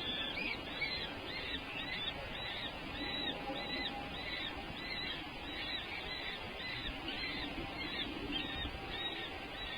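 A bird calling in a steady run of short, high-pitched chirps, about two a second.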